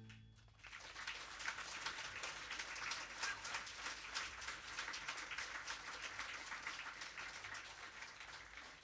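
Audience applauding, the clapping setting in about half a second in and slowly dying away.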